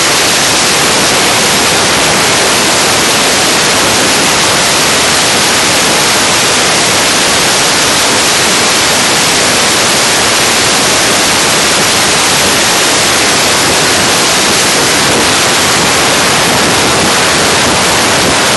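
Loud, steady rushing hiss of wind and road noise at highway speed, recorded on a phone. No engine note or other distinct sound stands out of it.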